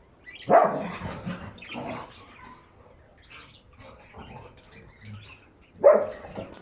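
Budgerigar chirping, with a louder call about half a second in and another near the end.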